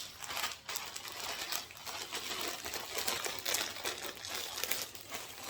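Packaging and clothing being handled, crinkling and rustling in a dense run of quick crackles as the next garment is unpacked.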